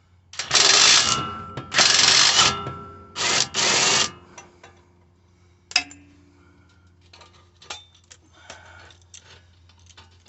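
Impact wrench, fitted with a regular 18 mm socket on a reducer, hammering at the shock absorber mount bolt in four bursts over about four seconds. A sharp metallic clink that rings briefly follows a couple of seconds later, then light clicks and rattles of tools being handled.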